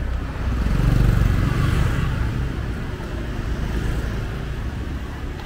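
Street traffic: a motor vehicle's engine passes close by, loudest about a second in and then slowly fading, over a steady traffic rumble.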